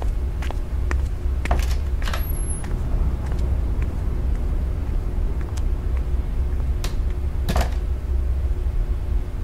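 Sharp computer mouse and keyboard clicks at irregular intervals over a steady low background rumble.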